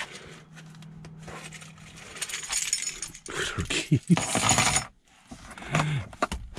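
A bunch of car keys jangling and clinking in a hand from about two seconds in until a sudden stop about five seconds in, with handling and rustling noises against the seat and console. A faint steady hum runs in the first two seconds.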